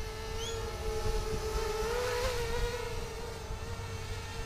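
Diatone mini quadcopter's brushless motors (RCX 1806) and propellers whining steadily in a hover, the pitch wavering and rising slightly about two seconds in as the sonar altitude hold works the throttle.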